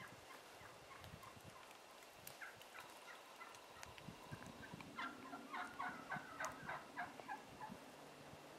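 Merriam's wild turkeys calling: a few faint short notes, then a louder run of about ten short, evenly spaced notes lasting two to three seconds.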